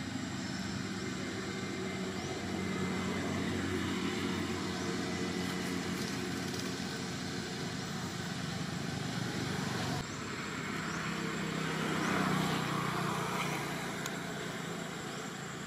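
Motor vehicle engines running steadily, with one vehicle swelling loudest about twelve seconds in as it passes, then fading.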